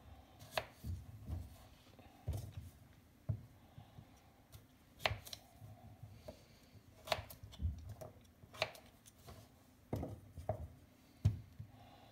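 Paring knife cutting skin-on potatoes: sharp knocks at irregular intervals, roughly one a second.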